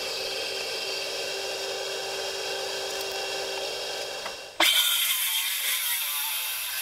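A steady motor hum with a fixed tone, which cuts off abruptly a little over halfway through and gives way to a louder hiss with faint handling sounds.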